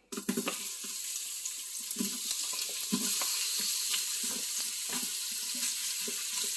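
Chopped onion sizzling in hot oil in the stainless steel inner pot of an Instant Pot, starting suddenly as the onion is scraped in. A wooden spoon knocks and scrapes against the pot as it is stirred.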